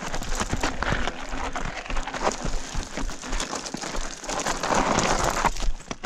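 Mountain bike riding down a rocky, loose-gravel trail: tyres crunching over stones, with a constant stream of sharp knocks and clatter from the bike jolting over the rock.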